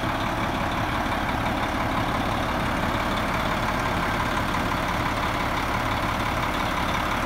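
Detroit Diesel engine of a 1999 Oshkosh 4x4 dump truck idling steadily.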